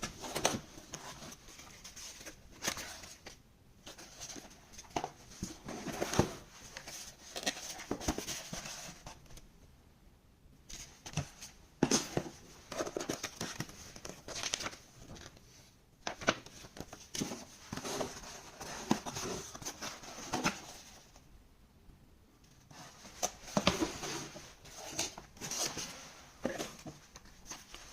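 Packaging and parts of a micro model airplane kit being unboxed by hand: irregular crinkling and rustling with short clicks and taps, pausing briefly about ten seconds in and again a little past twenty seconds.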